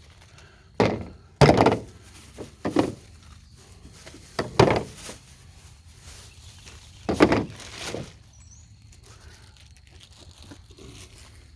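A series of hollow thunks and knocks, about six of them over the first eight seconds, then quiet handling. They sound like pipe pieces and fittings being picked up, knocked together and set down.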